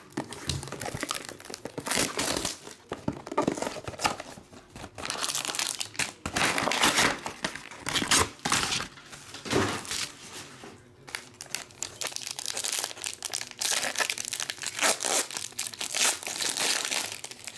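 A 2019 Panini Playbook football card box being unwrapped, and its silver foil card pack crinkled and torn open by hand: irregular crinkling and crackling with short tearing sounds.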